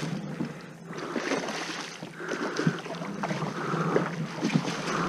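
Water splashing in repeated surges as a hooked snook thrashes at the surface near a kayak.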